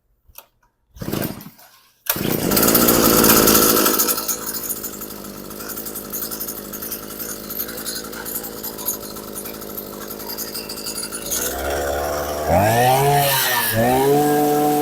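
Earthquake 43cc two-stroke posthole digger engine being pull-started with the choke on: a rope pull about a second in, then it catches and runs loud before settling to a steady idle. Near the end the throttle is opened, the pitch swinging up and down, and it holds at a higher steady speed.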